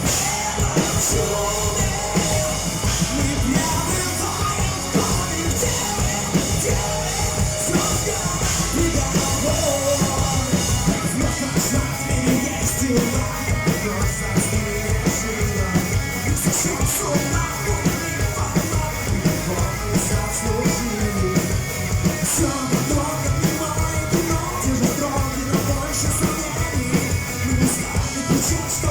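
Rock band playing a song live, with singing over drums and a dense band sound that keeps going without a break.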